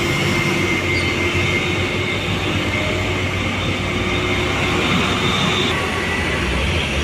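Diesel truck engines running steadily, mixed with the noise of heavy traffic passing on the road.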